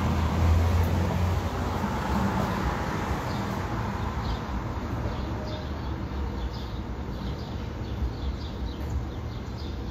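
Outdoor background noise: a low rumble, loudest in the first second or two and slowly fading, with faint bird chirps through the second half.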